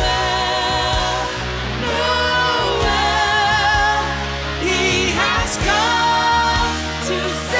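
Female and male voices singing with vibrato and wavering runs, accompanied by a Yamaha grand piano.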